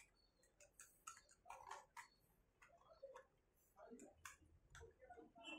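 Near silence: a few faint, scattered clicks of small plastic toy food pieces being handled, with a faint voice murmuring.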